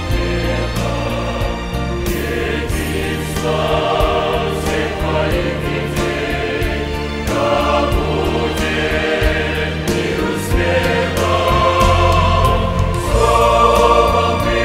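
Mixed choir of men and women singing a hymn in parts, sustained chords that swell a little louder near the end.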